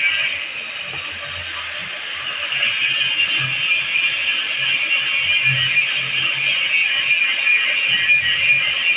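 A power tool running on a metal shutter during repair work: a steady hissing, grinding noise that eases off shortly after the start and picks up again about two and a half seconds in.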